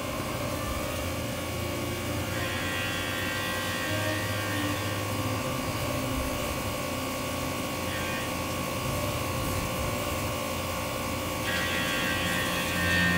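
Tormach 1100MX CNC mill spindle running as a small end mill cuts 6061 aluminium under flood coolant: a steady whine, with the higher cutting sound coming and going several times as the tool works along the bolt flats.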